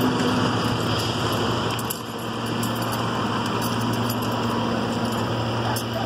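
Slow road traffic with heavy diesel trucks running in a line, a steady engine hum over road noise, dipping briefly about two seconds in.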